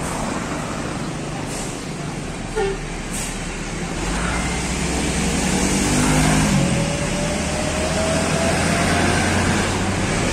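Road traffic with a large diesel bus, a Mercedes-Benz 1626 coach, passing close alongside motorcycles. It is loudest around the middle, where its engine pitch falls as it goes by, and a rising whine runs from about halfway.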